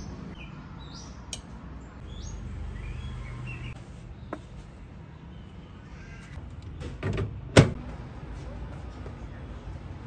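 Dishes and a fork being handled on a wooden tray: a few light clicks and clinks, and a sharp knock about seven and a half seconds in.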